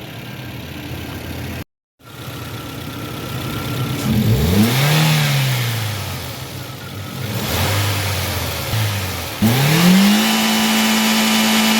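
A car engine idling, then after a short cut an engine revved up and falling back, and revved again about two seconds from the end, held steady at high revs.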